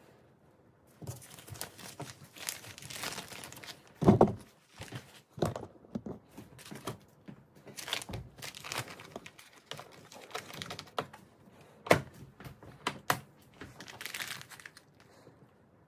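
Crinkling and rustling of a textured plastic vacuum-sealer bag as a plastic-wrapped sausage log is slid into it and the open end is fed into the sealer. There is a heavy thump about four seconds in and a few sharp clicks near the end.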